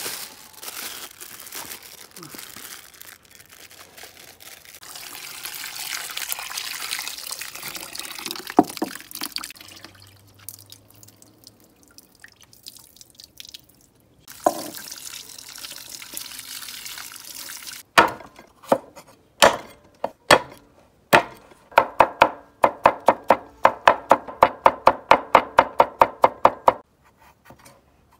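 Tap water running into a bowl as fermented black beans are rinsed by hand. Later comes a Chinese cleaver chopping ginger on a wooden board: a few separate knocks, then a quick, even run of strokes that stops shortly before the end.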